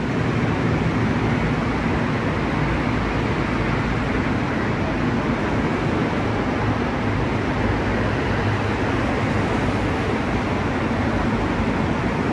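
Steady road traffic noise with a low engine hum from vehicles waiting and passing at a closed railway crossing.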